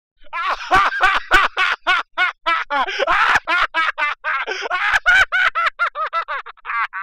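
A high-pitched, nasal cartoon voice giving a rapid run of short, quack-like yelps, about five a second, quickening toward the end.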